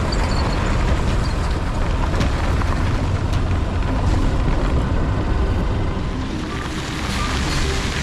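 Steady wind noise on the microphone over a low road rumble from a vehicle driving along an unpaved dirt road.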